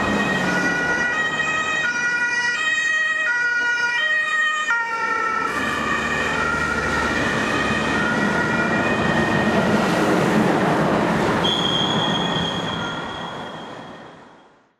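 Emergency ambulance's two-tone German siren (Martinshorn) alternating between two pitches, over traffic noise. Its pitch drops about five seconds in as it passes, then it fades away near the end as the ambulance drives off.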